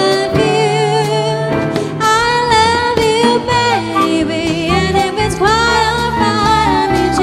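A song: a woman singing with wavering vibrato over band accompaniment with bass.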